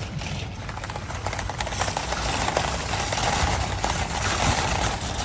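Car driving on a snowy road, heard from inside the cabin: a steady low engine and road rumble with a hiss of tyres on snow, getting a little louder about a second and a half in.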